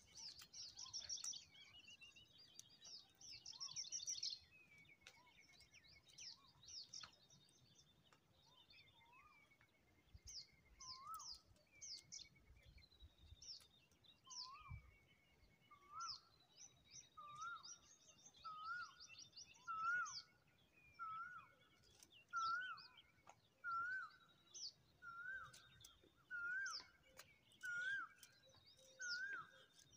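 Several birds chirping and calling: quick high trills and chirps with some longer whistled notes. From about halfway through, a short rising-and-falling note repeats roughly once a second.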